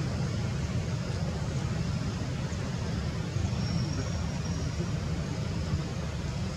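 Steady low outdoor rumble with an even hiss above it, and a faint thin high whistle for about a second midway.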